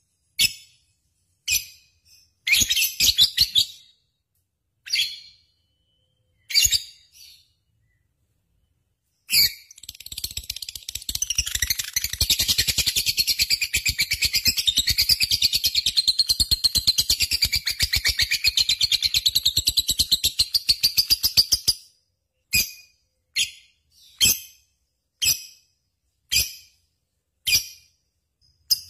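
Lovebird singing: short, sharp chirps spaced out, then about nine seconds in a long, rapid, unbroken chatter lasting some twelve seconds, then spaced chirps again.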